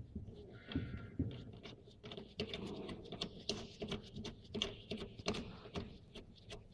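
Irregular light clicks, taps and rattles of a TIG torch's hose and connector fittings being handled and fitted to a welding machine.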